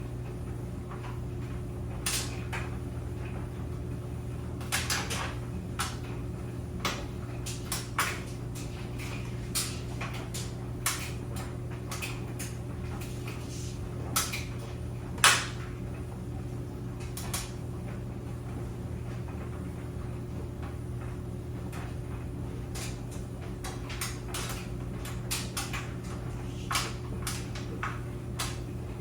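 Tumble clothes dryer running with a steady low hum, overlaid by irregular clicks and knocks from the tumbling drum, one louder knock about halfway through.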